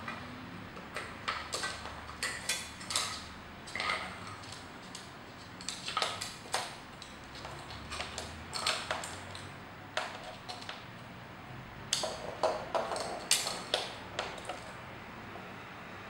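A male Eclectus parrot pushing and mouthing a plastic bottle cap across a laminate floor: irregular clusters of sharp clicks and taps from the cap and beak knocking on the floor.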